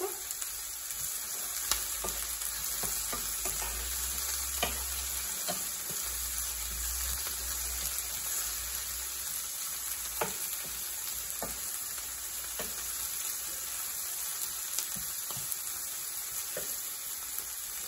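Chopped jalapeño, onion, purslane and green beans sizzling steadily in hot oil in a frying pan. The vegetables are stirred with a wooden spoon, which gives occasional light clicks against the pan.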